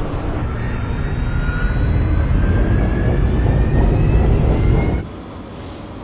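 Fighter jet engine roar: a deep rumble with a whine that rises steadily in pitch, growing louder for about five seconds before cutting off sharply.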